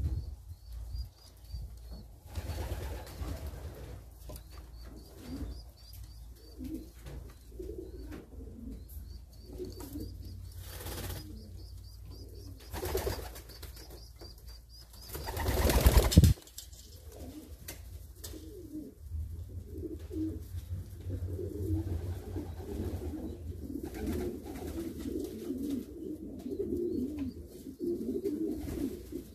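Pigeons cooing in a loft, with strings of thin high squeaks from squabs being fed in the nest bowl. A loud rush of noise swells and cuts off suddenly about halfway through.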